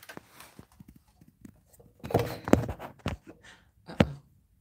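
Handling noise from a phone being moved and set in place: a few bumps and rubbing knocks about two seconds in, then one sharp knock near the end.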